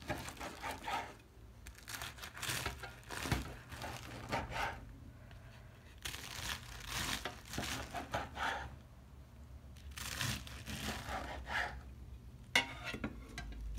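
Knife slicing through crisp baked phyllo (baklava yufka) börek rolls on a wooden cutting board: repeated bursts of crackling and crunching as the flaky layers break under the blade, the sign that the pastry has baked crisp.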